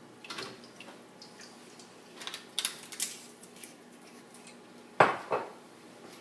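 Kitchen utensils and cookware clinking and knocking while a barbecue sauce is made in a pot, with two louder knocks near the end.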